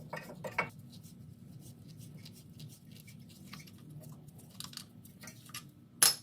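Small scattered clicks and scrapes of hand tools and parts being handled during brake work, with one sharp click near the end.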